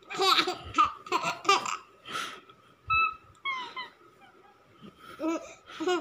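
A baby laughing in short, repeated bursts, with a few higher-pitched calls in the middle.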